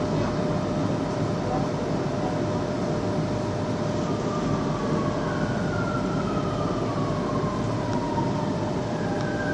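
Metro train running, heard from inside the carriage: a steady rumble with a constant hum. From about four seconds in, a high whine slowly falls in pitch.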